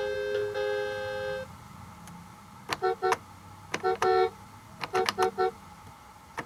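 VTech Turn and Learn Driver baby toy playing electronic tunes through its small speaker. A tune of beeping notes stops about a second and a half in. After a pause, presses on the steering wheel's centre button click and each sets off a few quick notes.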